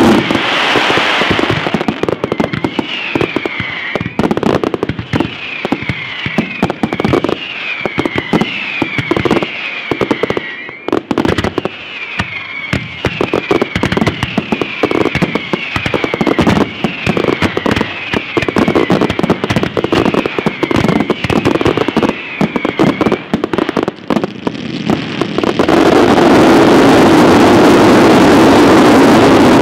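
Fireworks display: rapid, dense volleys of bursting shells and cake shots, with a repeating warbling whistle over the bangs for most of the first twenty seconds. About twenty-six seconds in, the bangs merge into one loud, continuous rush of noise as a massive white finale fires.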